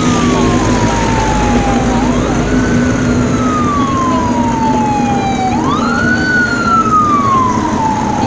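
A wailing siren: each cycle climbs quickly in pitch and then falls away slowly, repeating about every three and a half seconds, over a steady low hum of street noise.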